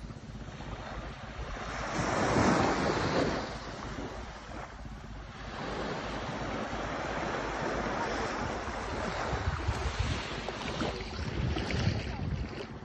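Small ocean waves washing up onto a sandy beach and draining back in shallow water. The loudest wash comes about two to three seconds in, with another long wash building through the second half.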